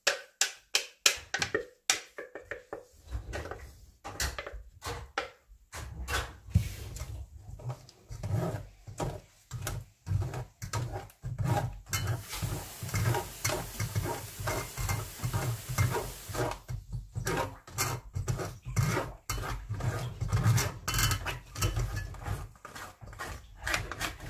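A wooden spoon scraping and knocking against a fine stainless-steel mesh sieve as blended strawberry purée is pressed through it into a steel pot, straining out seeds and lumps: many short scrapes and taps, with a few seconds of steady rasping about halfway through.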